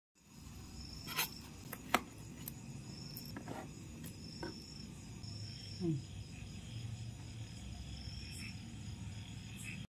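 Faint cricket chirping, with a few sharp clicks of a steel knife and fork against a steel plate as cooked chicken is cut, the loudest about two seconds in. A brief low falling sound near six seconds.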